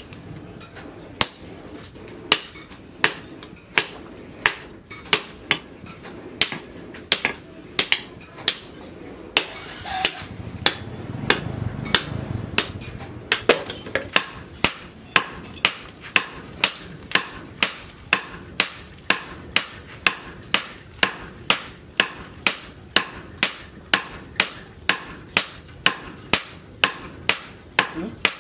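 Hammer blows on red-hot leaf-spring steel on a steel post anvil, forging a cleaver blade. The blows come steadily, about one and a half a second at first, then about two a second from around halfway, when a sledgehammer and a hand hammer strike in turn.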